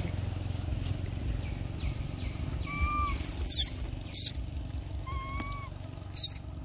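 Infant long-tailed macaque calling: three short, very high-pitched squeaks, about halfway in, a moment later and near the end, with softer rising-and-falling coos between them.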